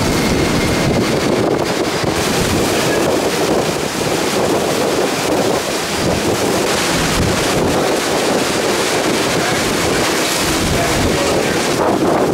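Hurricane-force wind and driving rain in steady, gusting rushes, with heavy wind buffeting on the microphone.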